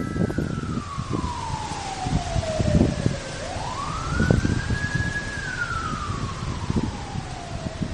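A siren wailing slowly over a low rumbling background. Its pitch falls over about three seconds, climbs back quickly, holds briefly, then falls again and starts to rise near the end.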